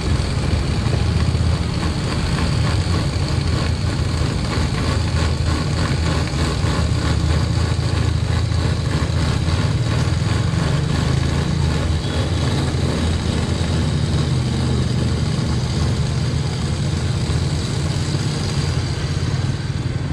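Cotton candy machine running steadily as floss is spun, a continuous low hum that does not change in pitch or level.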